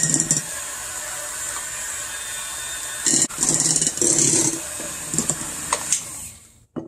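Old-style electric hand mixer running steadily, its beaters churning cream cheese in a glass bowl, with a few louder bursts a little past halfway. The sound falls away near the end.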